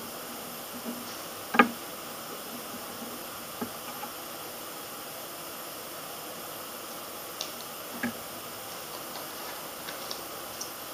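Steady hiss of room tone with a handful of short, light taps and clicks as cards and paper are handled on a tabletop; the sharpest tap comes about a second and a half in.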